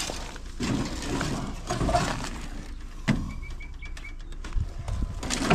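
Birds disturbed from their nest, calling: a quick run of about five short, high chirps a little past the middle.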